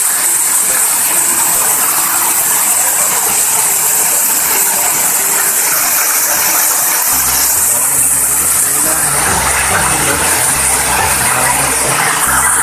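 Waterfall rushing, a loud steady roar of falling water. A low rumble joins it about seven seconds in.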